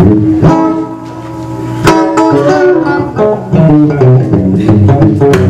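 Guitar solo played live: one long held note fading away, then a run of quick plucked notes over a steady low backing.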